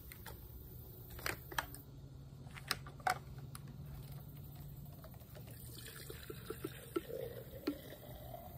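A few sharp knocks as a chainsaw is handled and tipped over a glass jar, then fuel pouring from the saw's tank into the jar, its pitch rising steadily as the jar fills, with a few short clicks.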